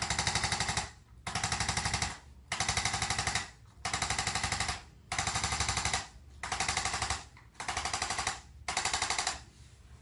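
Handheld electric chiropractic percussion instrument pressed against a patient's back, firing eight bursts of rapid, even mechanical taps, each burst about a second long with short pauses between them.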